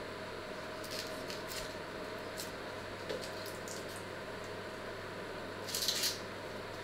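Dry onion skin crackling and rustling as small onions are peeled by hand with a little knife: scattered faint crackles, then a louder crackly rustle near the end. A steady low hum runs underneath.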